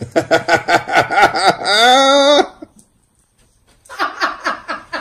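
An English bulldog farting: a long, fast flutter that ends in a drawn-out squeaky tone and stops suddenly. A person starts laughing about a second later.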